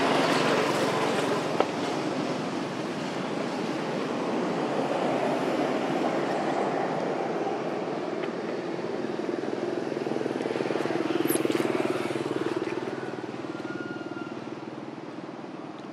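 Distant engine noise from passing traffic, a steady rumble that swells to a peak about eleven seconds in and then fades away. A single sharp click comes about one and a half seconds in.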